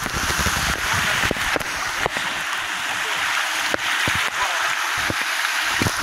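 Shallow creek water rushing steadily over rocks, with scattered irregular knocks.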